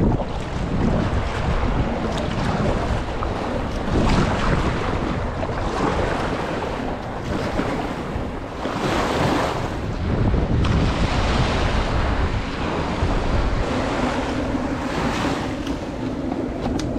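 Small surf waves washing in around a kayak as it is paddled onto a sandy beach, with wind rumbling on the microphone. The rushing comes in surges every second or two.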